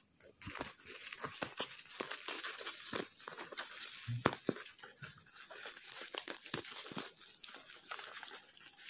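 Black plastic mailer bag and packing tape crinkling and tearing as they are pulled open by hand, a dense run of sharp crackles.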